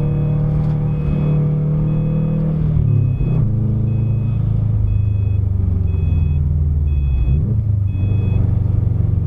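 2008 Subaru WRX STi's turbocharged flat-four engine running steadily as the car drives, heard from inside the cabin, its note dropping about three seconds in. A faint two-tone beep repeats about every three-quarters of a second over it.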